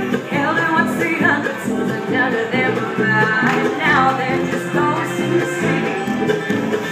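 Live bluegrass string band playing: strummed acoustic guitars, fiddle, mandolin and upright bass, with a woman singing lead.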